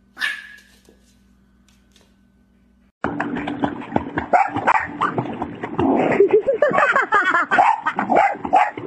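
A brief sharp sound just after the start. Then, from about three seconds in, a dog barks and yips over and over, with whining that glides up and down in pitch.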